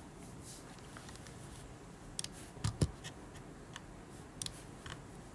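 Sparse light clicks and taps, with two dull knocks in quick succession a little before the middle, over a faint steady hiss.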